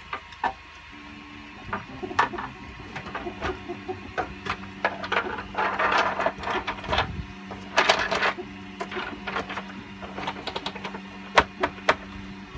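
3D-printed plastic droid parts being fitted together by hand: irregular clicks, knocks and scraping of plastic on plastic, with two longer scraping spells in the middle and a sharp click near the end. A steady low hum runs underneath.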